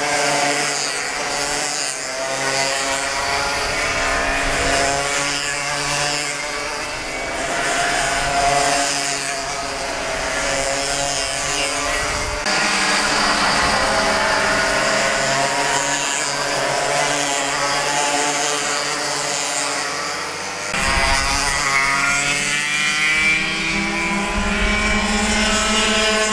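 Several small two-stroke racing kart engines buzzing and revving past, their pitch rising and falling as they go through corners. The mix of engines changes abruptly about halfway through and again near the end.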